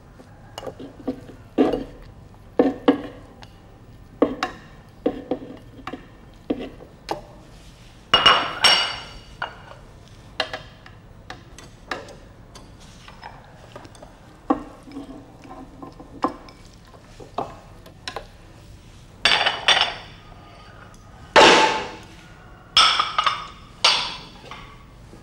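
Chopsticks and a plate knocking and clinking against the plastic bowl of a food processor as pieces of raw meat and fat are scraped in: a run of light taps with a few louder clatters about a third of the way in and again near the end.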